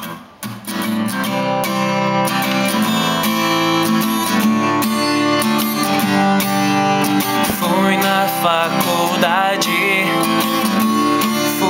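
Music: a song's intro on strummed acoustic guitar, starting at once, with a wavering melody line joining about eight seconds in.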